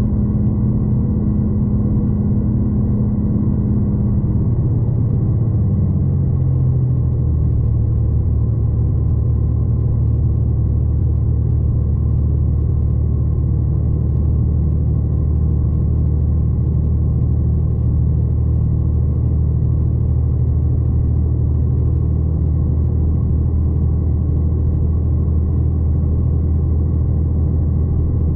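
Steady low drone of a V/Line diesel train heard from on board, its engine note stepping down in pitch between about four and seven seconds in, then running steadily.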